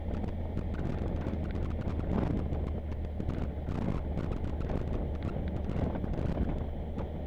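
Motorcycle engine running steadily under wind noise, with many irregular sharp ticks on top.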